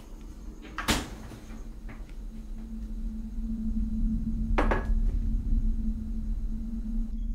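Two sharp clattering knocks, like dishes or a cupboard, about four seconds apart, with a fainter one between them, over a steady low hum that slowly swells louder.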